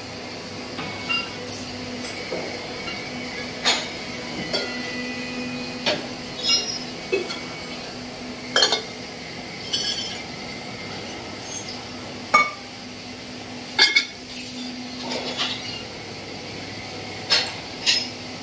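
Drawn aluminium pressure-cooker pieces clinking and knocking with a bright metallic ring as they are handled and set down on the bed of a hydraulic draw press, about a dozen irregular strikes. Under them the press's electric hydraulic power pack hums steadily.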